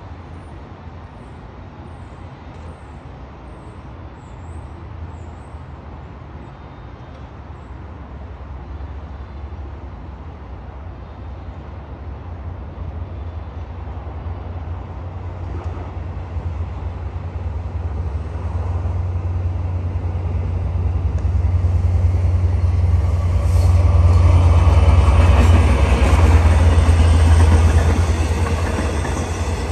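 Diesel-hauled Long Island Rail Road train of bilevel coaches approaching and passing, a low rumble that builds from about halfway through and is loudest near the end. Birds chirp faintly in the first few seconds.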